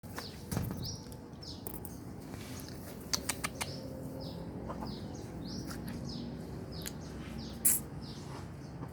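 Sick chicken in quarantine giving repeated short, high, falling squeaky peeps, the noisy 'snoring' breathing the uploader takes for a respiratory illness. Three quick clicks come a third of the way in, and a brief sharp scrape near the end.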